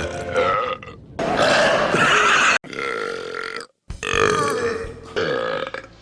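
Loud human belches, several long drawn-out burps one after another, spliced together with abrupt cuts between them.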